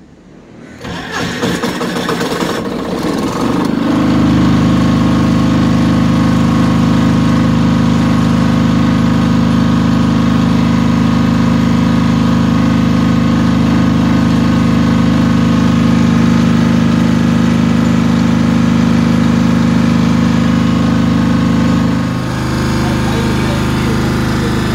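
Kirloskar iGreen 5 kVA diesel generator being started: the engine cranks and catches over the first few seconds, then settles into a steady, even run.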